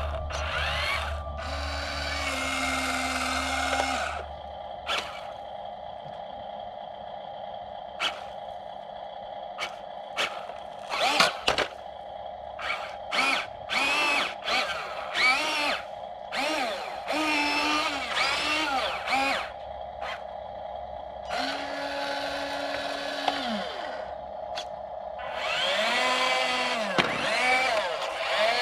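Small electric motors of a WLtoys 14600 RC dump truck whining, repeatedly rising and falling in pitch as it drives and tips its bed, over a steady hum, with a few sharp clicks around the middle.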